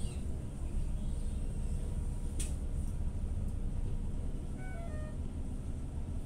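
TCV Karat city bus engine idling, heard from inside the cabin as a steady low rumble, an engine sound called extremely faulty. A sharp click about two seconds in, and a short run of electronic beeps near the end.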